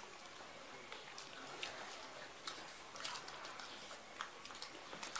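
Faint wet chewing and lip-smacking of people eating singju, a Manipuri salad of raw cabbage and fritters, by hand: scattered soft clicks and smacks.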